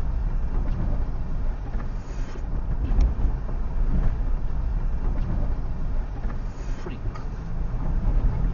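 Low rumble of a car rolling slowly over a rough, rocky gravel track, heard from inside the cabin, with a few short knocks from stones under the tyres or the suspension.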